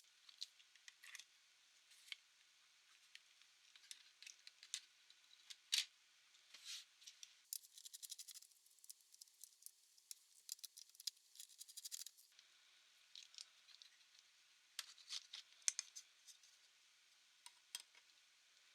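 Faint clicks, taps and scrapes of small hard parts being handled on a laptop being taken apart. A run of rapid, even ticks comes in the middle.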